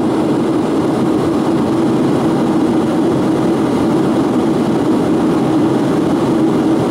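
Steady drone of an airplane in flight heard inside the cabin, with a strong low hum and no change in level.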